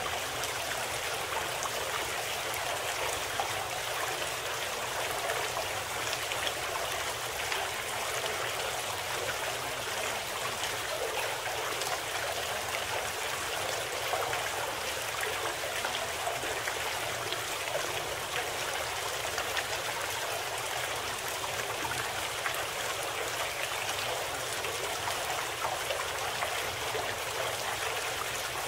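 Steady sound of running water, like a flowing stream, unchanging throughout with fine trickling detail.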